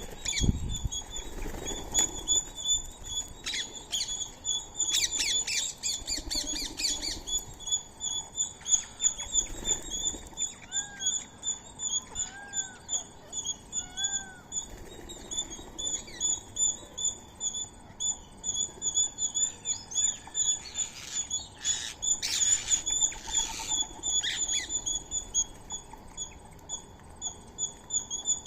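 Birds calling: a rapid high chirping repeats steadily throughout, with bursts of squawking calls about five seconds in and again past twenty seconds, and three short rising-and-falling calls near the middle.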